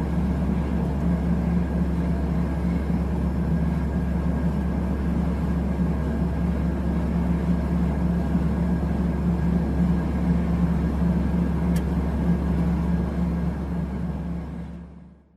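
Beechcraft King Air's twin turboprop engines idling, heard from inside the cabin: a steady drone with a strong low hum and a deep rumble, with one faint click near the end before the sound fades out.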